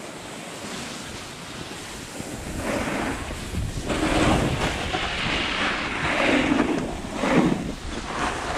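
Edges scraping across packed snow as the rider slides downhill, mixed with wind noise on the microphone. It stays low for the first two and a half seconds, then comes in several louder surges, one with each turn.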